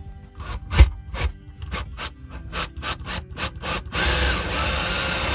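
Hart cordless drill driving a test screw into an RV wall panel: a run of short sharp strokes, about three a second, then from about four seconds in the drill runs steadily. The screw is a probe for a hidden metal beam before cutting with a hole saw.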